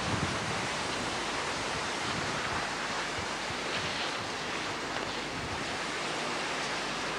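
Steady rushing noise of wind over the camcorder microphone, with a little low buffeting in the first moment.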